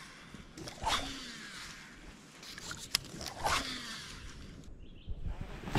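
Handling sounds of a fishing rod and line being worked from a boat: swishes recurring about every two seconds, then a sharp knock at the very end.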